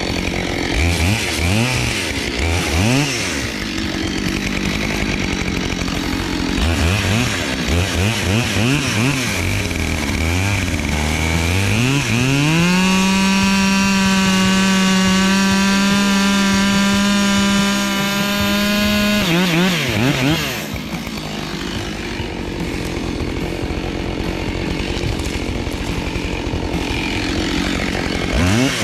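Husqvarna 572 XP chainsaw, a new saw still being broken in, bucking a blown-down log: the engine revs up and down in short blips, then is held at a steady high whine for about seven seconds in the middle, drops off suddenly, and revs up and down again.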